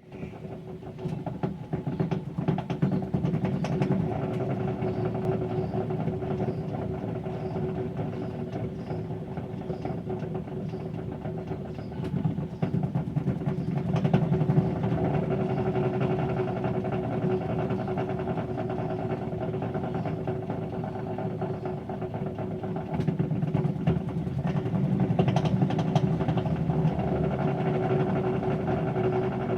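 TECO QA6501 washing machine in its spin cycle: a steady hum and whine with rapid ticking and rattling on top, swelling louder a few times. This is the abnormal spin noise the owner is showing.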